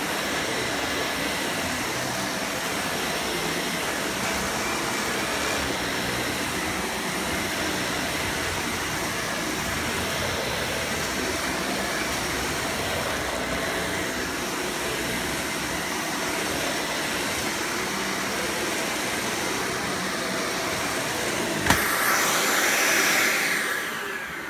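Dyson Cinetic Big Ball Animal upright vacuum cleaner running steadily while vacuuming carpet. About 22 seconds in there is a sharp click and the vacuum's sound turns louder and higher, then begins to fade near the end.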